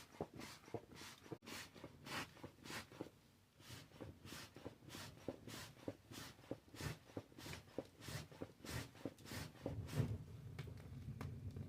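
Hand bellows puffing air into the coals of a fireplace fire in a quick, even rhythm, about three puffs a second. From about ten seconds in a low rushing sound builds under the puffs.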